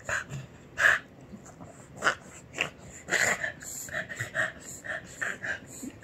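Small shaggy terrier coughing: a run of short hacking bursts, a few each second, the loudest about one, two and three seconds in.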